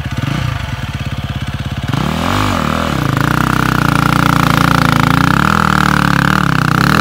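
KTM dirt bike engine chugging at low revs, then revving up about two seconds in and pulling hard up a steep, loose rocky climb. Its pitch rises and dips with the throttle.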